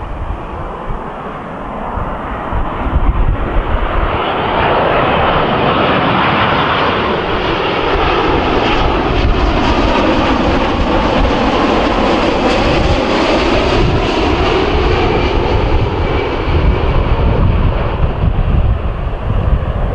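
Boeing 787-9's GEnx-1B turbofans on final approach passing low overhead: a jet rush that builds over several seconds, is loudest a little past halfway, then eases off, with sweeping tones that fall and rise in pitch as the aircraft goes over.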